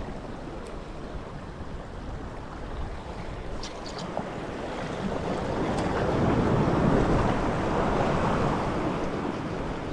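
Sea surf washing against a rocky shore, swelling to its loudest a little past the middle and then ebbing, with a few faint clicks about four seconds in.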